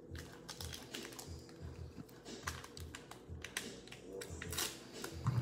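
Foil wrapper of a Panini Spectra football card pack crinkling and tearing as it is pulled open by hand, in a run of irregular crackles, with music in the background.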